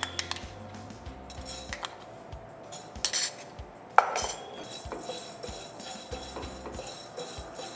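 Spatula stirring fenugreek seeds in a dry non-stick kadai as they dry-roast: soft scraping and rattling of seeds against the pan, with a sharp tap of the spatula on the pan about four seconds in.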